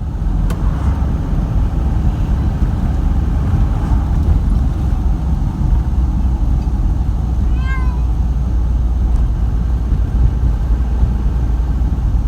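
Steady low rumble of a moving vehicle heard from inside, with a cat meowing once, short, about eight seconds in.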